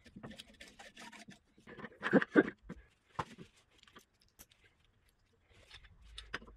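Scattered light clicks and knocks of metal parts being handled while a milling machine's saddle is reassembled, with a louder cluster about two seconds in.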